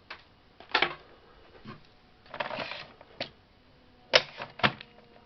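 Plastic clicks and knocks from an Epson ET-3850 printer being handled while its USB port is searched for, with a short scrape about halfway through. Two knocks stand out, one near the start and a louder one about four seconds in, followed by a quick second knock.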